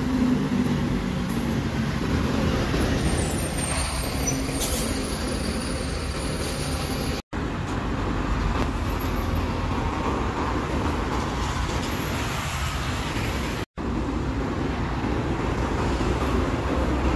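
Diesel city buses running as they pass along a busy street, over steady traffic noise. The sound cuts out abruptly twice.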